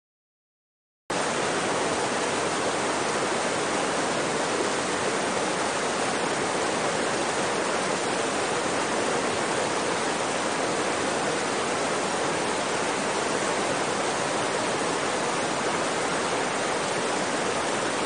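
Water pouring from a large outlet pipe and splashing down onto rocks into a shallow stream pool: a steady rushing that starts suddenly about a second in.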